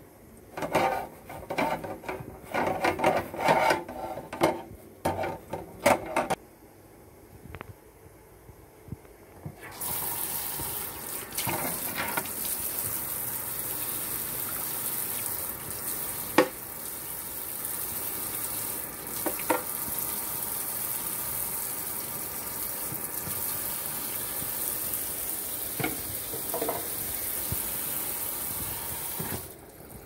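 A scouring sponge scrubbing a plastic dish-drainer tray in a sink in short, uneven rasping strokes for about six seconds. About ten seconds in the kitchen faucet is turned on and water runs steadily into the sink while the tray is rinsed, with a few sharp knocks of plastic against the sink, and the water stops just before the end.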